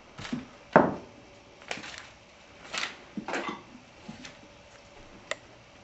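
Metal spoon scraping and tapping inside a hollow pumpkin as seeds and pulp are scooped out: a handful of short, separate scrapes and taps, with a sharp click near the end.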